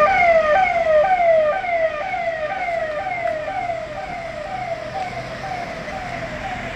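Police vehicle siren wailing in a fast, repeating falling sweep, about two sweeps a second, growing steadily fainter.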